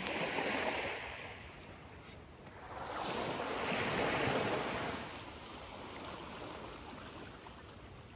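Small waves washing up a sandy beach: one surge of water over the sand right at the start, and a second, longer one about three seconds in, each swelling and fading away.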